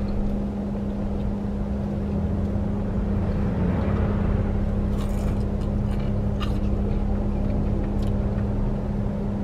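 Jeep Wrangler cabin noise while driving: a steady road and engine rumble with a constant low hum, and a few faint clicks.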